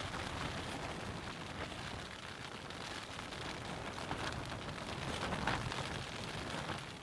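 Wind-driven rain beating on a tent's fabric, heard from inside the tent: a steady hiss of rain with louder gusts of spatter, the strongest about five and a half seconds in.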